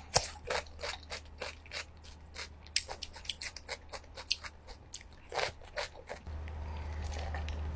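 Close-miked crunching of a raw cucumber stick being bitten and chewed: many crisp crunches that die away about six seconds in.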